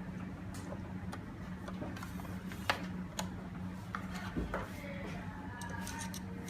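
Scattered light clicks and taps of lock hardware being handled during installation, with one sharper knock a little under three seconds in, over a steady low hum.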